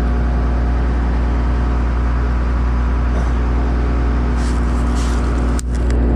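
Diesel engine of a Case 2144 combine running at a steady idle, with a few light metal clinks and one sharp metallic clack near the end as the header lock is worked by hand.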